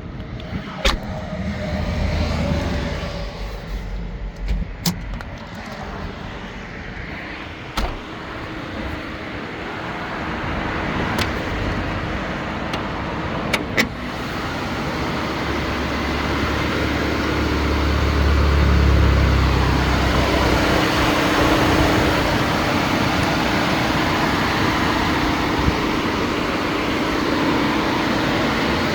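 2015 Infiniti QX60 running and moving, its engine and road noise building gradually under a steady hum. A few sharp clicks or knocks come in the first half.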